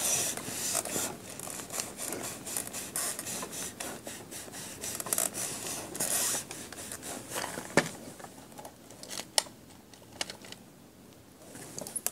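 Hand pressing and rubbing over the clear plastic lid of a MISTI stamping tool to transfer a stamp onto card: a scratchy rubbing, with scattered small clicks and two sharper plastic clicks about eight and nine and a half seconds in. The rubbing grows fainter toward the end.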